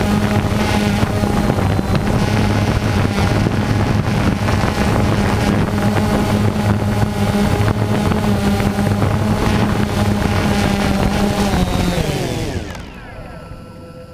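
DJI Phantom 2 quadcopter's four electric motors and propellers buzzing steadily in flight, heard from the aircraft's own camera. About twelve seconds in the pitch slides down and the sound drops away as the motors spin down with the drone set down in the grass.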